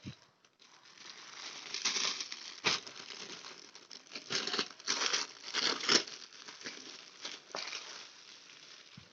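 Packaging crinkling and rustling in irregular bursts as it is handled and unwrapped, with a few louder crackles around the middle.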